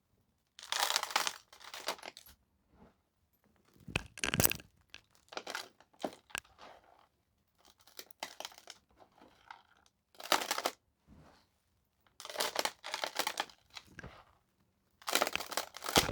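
Irregular bursts of crunching and crinkling, each under a second, with quiet gaps between them.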